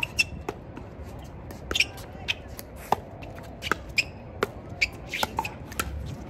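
Pickleball paddles striking the plastic ball and the ball bouncing on the court: a dozen or so sharp pops and knocks at an uneven pace, some overlapping, as from play on more than one court.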